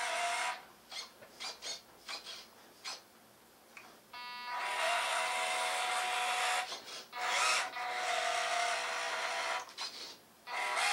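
The electric drivetrain of a 1:18 scale Chevrolet K10 RC truck, motor and gears whining as it is driven in spurts. It gives a raspy, steady-pitched whine: a few short blips at first, then longer runs from about four seconds in. It is a little bit noisy.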